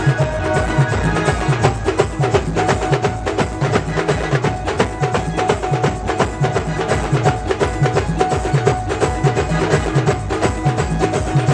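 Live band music: fast, dense percussion with sharp clicking strokes over a drum beat, and a long held melody note above it.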